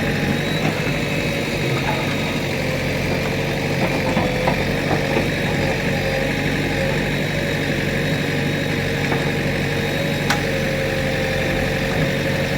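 JCB 3DX backhoe loader's diesel engine running steadily at an even pitch, with a single sharp click about ten seconds in.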